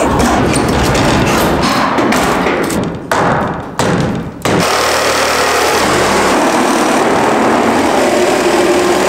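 Old wooden subfloor boards being pried up with a pry bar: repeated cracking and knocking of wood. From about halfway a power drill runs steadily.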